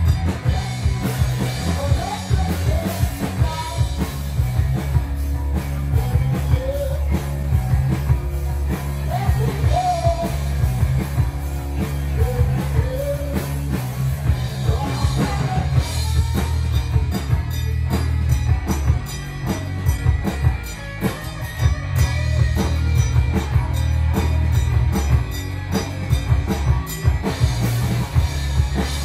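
Live rock band playing: electric bass and a drum kit, with a sung vocal line over the first half and busier drumming in the second half.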